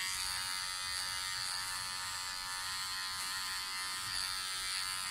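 Powertec TR-1700 electric hair clipper running with a steady buzz, trimming the fine hairs at the bottom of the nape.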